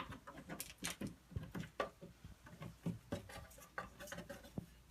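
Scattered light clicks, knocks and rustles of handling close by, irregular and faint.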